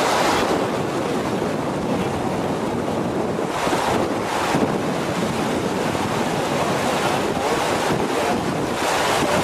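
Muddy floodwater in a desert wash rushing past a concrete bridge pier: a steady, turbulent rush of fast current, running at about 7 or 8 feet per second.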